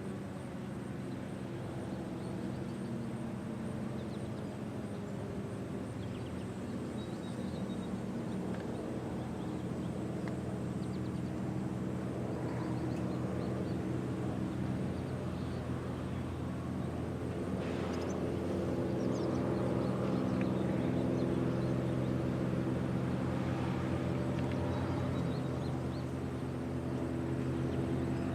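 A vehicle engine running at a steady pitch, getting somewhat louder in the second half.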